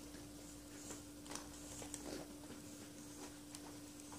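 Faint small clicks and scrapes of copper wire being wrapped by hand around the metal body of a T.Mi.Z.35 Teller mine fuze, over a steady hum.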